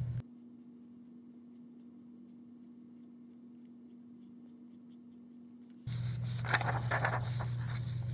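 A tissue-wrapped fingertip rubbing soft chalk across paper in short scratchy strokes, over a low steady hum. There is a long quieter stretch with only the faint hum, and the rubbing comes back about six seconds in.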